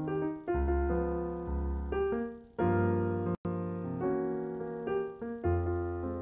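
Jazz piano playing chords over low bass notes, the harmony changing about once a second; the sound cuts out for an instant a little over three seconds in.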